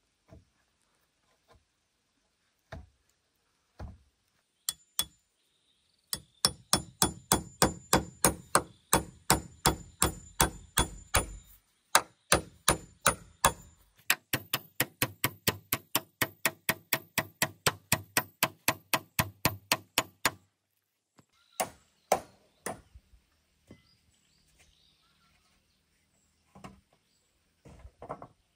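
Steel hatchet striking a wooden log in a fast, steady run of blows, about three a second, each with a metallic ring. Scattered single knocks come before and after the run.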